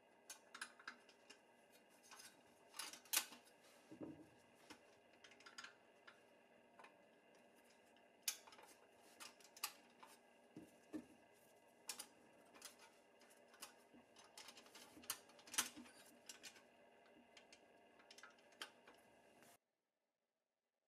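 Scattered light clicks and taps of black plastic toy wheels and small steel parts being handled and fitted onto the axles of a pressed-steel Tonka truck frame, over a faint steady hum. The handling sounds stop abruptly near the end.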